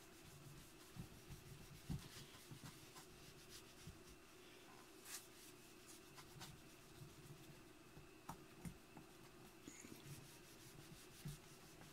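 Faint rubbing of a cloth over a chrome-plated metal part, wiping off rust-remover paste, with a few small knocks scattered through it.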